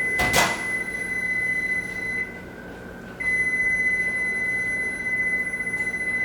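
Kitchen appliance's timer alarm: a long, high, steady beep that stops about two seconds in, then another long beep after a gap of about a second, signalling that the cooking time is up. A sharp knock, like a door or dish, comes just after the start.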